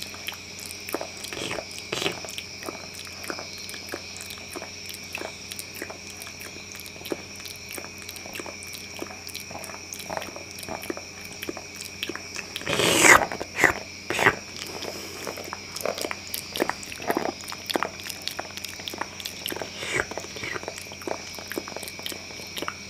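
Close-up ASMR mouth sounds: a quick, irregular run of wet clicks and smacks, with a louder burst of chomping about thirteen seconds in and a few more just after. A faint steady high whine sits underneath.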